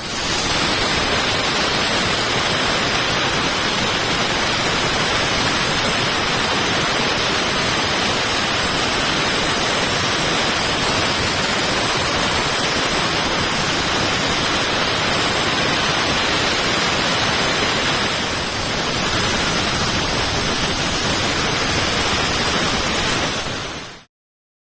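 Dry ice blasting nozzle spraying an engine: a loud, steady hiss of compressed air and ice pellets that dips briefly about three quarters of the way through and cuts off suddenly near the end.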